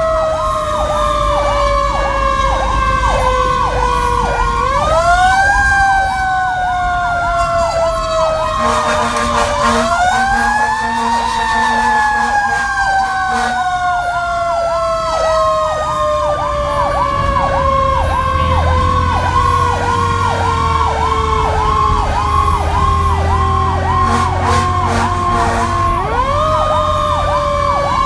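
A fire engine's sirens heard from inside the apparatus: one siren winds up quickly and then slowly falls in pitch, and is wound up again three times, over a second siren's fast repeating yelp. Short repeated horn blasts come in about a third of the way in and again near the end, with the truck's engine rumbling underneath.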